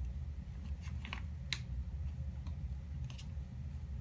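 A few faint clicks and rustles as packing is handled and unwrapped from a shipped orchid plant, over a steady low hum.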